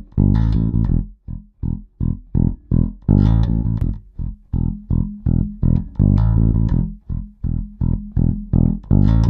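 Electric bass guitar played through an Empress Bass Compressor pedal: a rhythmic riff of short, clipped notes with a few longer held ones. The compressor is switched on about four seconds in.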